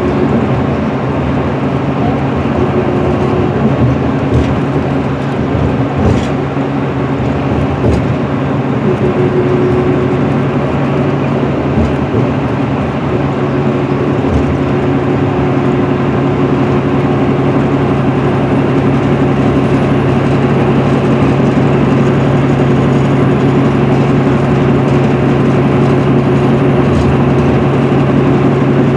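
Inside a 2010 MCI D4500CL coach cruising at highway speed: its Cummins ISM inline-six diesel drones steadily under tyre and road noise. A few light knocks from the cabin come early in the run.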